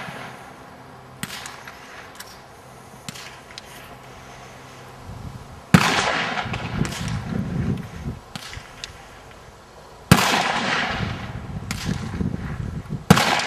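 Three rifle shots from a Dragunov-pattern semi-automatic rifle in 7.62x54R, the first about six seconds in and the others about four and three seconds apart. Each is a sharp crack followed by a rumbling echo lasting a couple of seconds.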